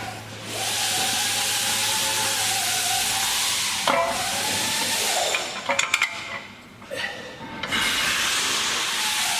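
Steady hiss of compressed air with a faint whine, cutting out briefly about four seconds in and again for about two seconds, with a few sharp clicks in the gap.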